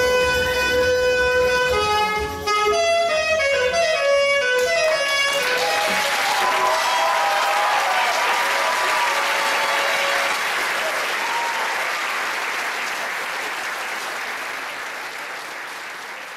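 Saxophone playing with accompaniment, the music ending about five seconds in. Then audience applause, which gradually fades.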